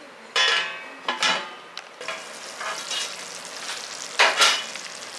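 A stainless steel lid knocks and rings against a kadai twice in the first second and a half, then thick tamarind kuzhambu with lentil dumplings bubbles and sputters as it simmers, with a louder burst of spluttering about four seconds in.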